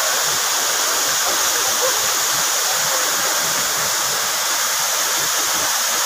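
Waterfall rushing down a rock face, a steady, unbroken hiss of falling water.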